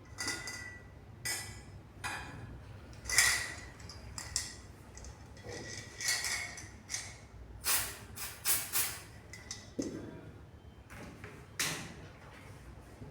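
Irregular metallic clicks, clinks and knocks, some ringing briefly, as the yoke machine and pie gauge are handled and set on the steel test piece for magnetic particle testing.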